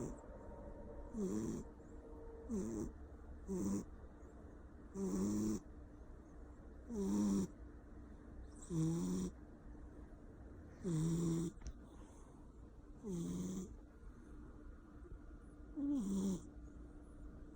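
A Persian cat snoring loudly: about nine snores at uneven gaps of one to two seconds.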